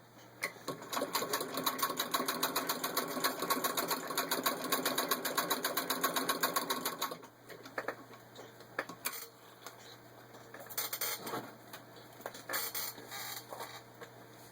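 Antique 1918 Singer 66 sewing machine turned by a hand crank, stitching through six layers of denim: a fast, even clatter of stitches for about seven seconds that then stops. Scattered clicks and brief rustles follow.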